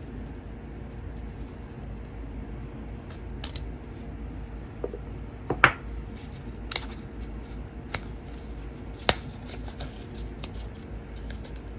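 Cardboard packing around a photocard being handled and pried open by hand: soft rustling broken by about five sharp clicks and snaps, the loudest a little past the middle.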